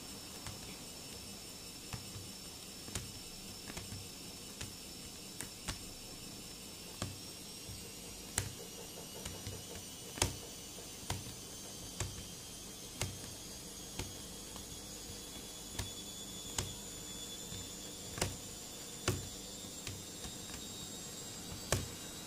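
Irregular sharp clicks and taps, roughly one a second with a few louder ones, as a plastic spoon and fingers work a lump of homemade glue-and-shaving-foam slime in a plastic bowl. A faint steady high-pitched whine runs underneath.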